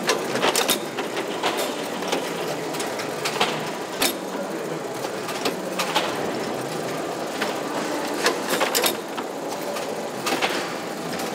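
Automatic seedling-tray seeding line running: a steady mechanical clatter with irregular sharp clacks from its chain-driven conveyor and tray-pushing parts.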